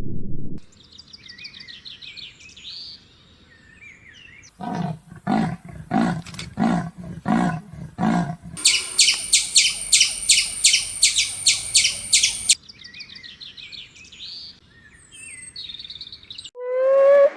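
Animal calls in sequence, mostly birds. A high warbling birdsong plays first, then a run of about nine lower, harsher calls at roughly two a second. A fast, even series of high chirps follows, and then the warbling song comes back.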